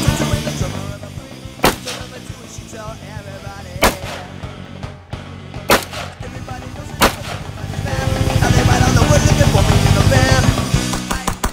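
Rock music playing, with four sharp single gunshots cracking over it, roughly two seconds apart, in the first two-thirds.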